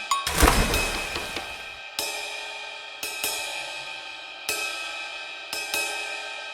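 Background music: cymbal crashes about once a second, each ringing out and fading, over held synth tones.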